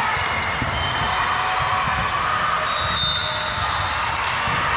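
Busy multi-court volleyball hall: a steady, echoing hubbub with volleyballs bouncing and thudding on the floor.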